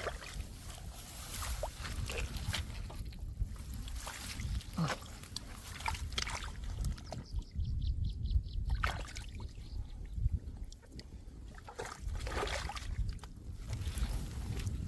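Irregular splashing and sloshing in shallow muddy water, with many short sharp splashes, over a low constant rumble.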